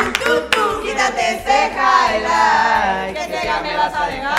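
A group of young men and women singing a Spanish-language song together in chorus, unaccompanied, their voices overlapping loosely.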